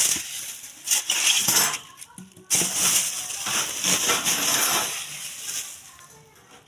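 Rustling and crinkling of packaging being handled, in irregular bursts that fade away toward the end.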